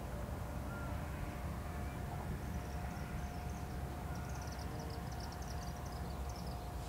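Strong wind rumbling and buffeting on the microphone, with a faint steady hum underneath. From about two and a half seconds in until near the end, a series of quick high chirps sounds over it.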